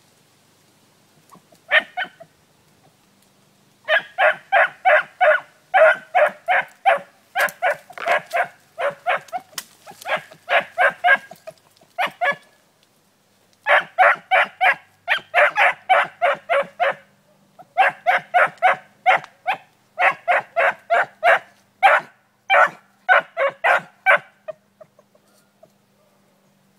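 Young beagle baying in quick runs of short calls, about three or four a second, with brief pauses between bouts: a hound giving mouth on a rabbit's trail. The calls begin with a single call, settle into steady runs about four seconds in, and stop shortly before the end.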